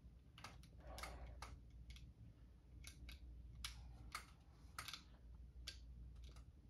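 Faint, irregular clicks of small plastic LEGO pieces being pressed onto a LEGO plate and handled, about a dozen short ticks.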